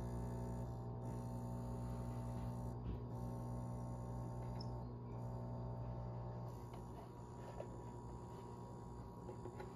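Gaggia Classic Pro espresso machine's vibratory pump humming steadily while an espresso shot pulls, then cutting off about six and a half seconds in. A light click follows about a second later.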